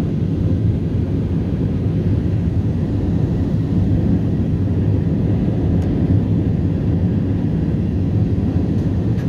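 Steady low rumble inside the cabin of an Airbus A320-232 climbing after takeoff: its IAE V2500 engines and the rush of air over the fuselage, heard from a window seat.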